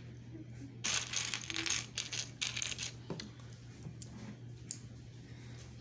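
Small plastic building bricks clattering on a hard surface: a dense rattle lasting about two seconds, then a few scattered clicks as pieces are picked through.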